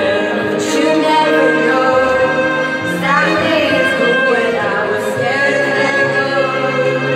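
Music with a singing voice, long held notes over an accompaniment.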